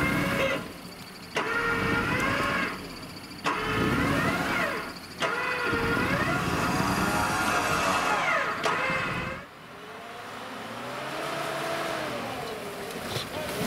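Mitsubishi Pajero Sport's engine revving up and down repeatedly as the SUV pushes through deep snow, in several separate bursts. After about nine and a half seconds a quieter, steadier engine note slowly grows louder as the vehicle approaches.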